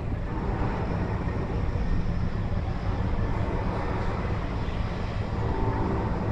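Steady low rumble of ship engines.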